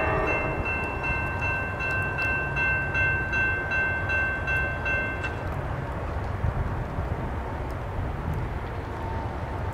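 Railroad grade-crossing warning bell ringing in quick, even strokes, about three a second, then stopping about five seconds in. Under it runs a steady low rumble of wind and the approaching train.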